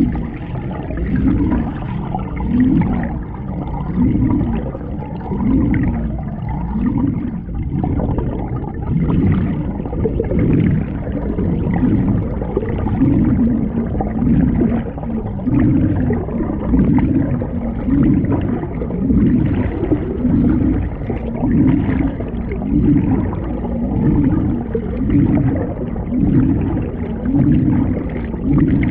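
Underwater water rushing and gurgling around a camera housing beneath a moving canoe, swelling and easing in an even rhythm about once a second with the paddle strokes.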